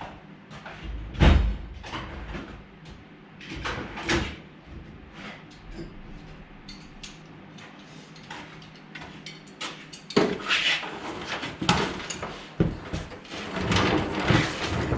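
Scattered knocks and clatter of tools and metal being handled during shop work, with a heavy thump about a second in and a busier stretch of clattering in the last few seconds.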